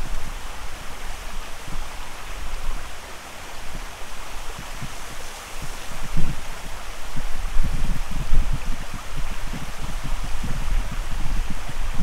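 Shallow creek flowing over rocks, a steady rush of water. Gusts of wind buffet the microphone in uneven low rumbles, strongest a little past the middle.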